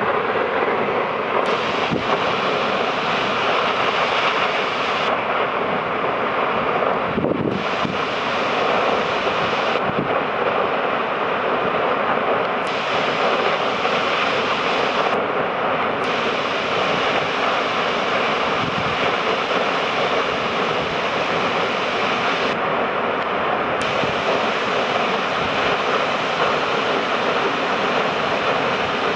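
Steady rushing of a large volume of water spilling over an overflowing dam and crashing down a rock face in a heavy, spray-filled cascade.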